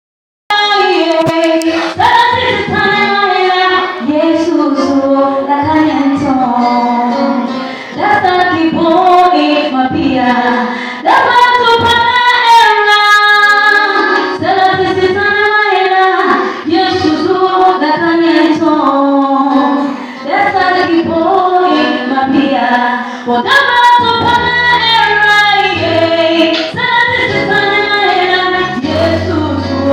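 A woman singing live into a microphone through a PA system, a melodic solo line with long held notes. Low accompanying notes join in near the end.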